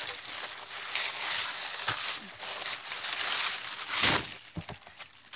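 Clear plastic wrapping crinkling and rustling as a wrapped bundle of card-making supplies is handled and lifted out of a cardboard box, with a sharp thump about four seconds in and a couple of lighter knocks after it.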